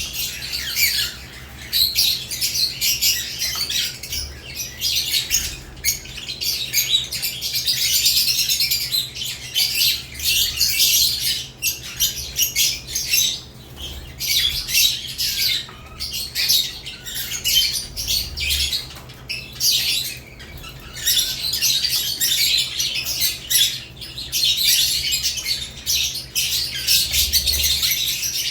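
Flock of caged lovebirds chattering with continuous high-pitched chirps and squawks.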